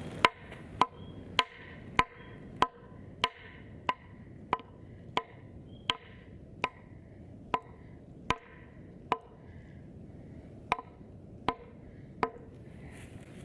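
Back of an axe head pounding a wooden pole into the ground: about eighteen sharp, woody knocks at a steady pace of a little under two a second, with a short pause about ten seconds in.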